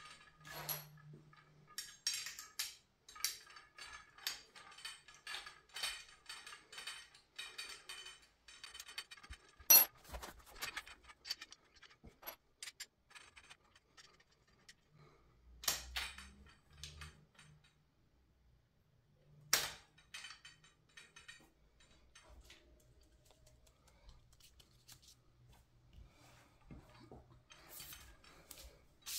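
Powder-coated steel tubes and fittings of an IKEA RIGGA clothes rack being handled and fitted together: scattered metallic clicks and knocks, with sharper, louder knocks about ten seconds in and again near twenty seconds.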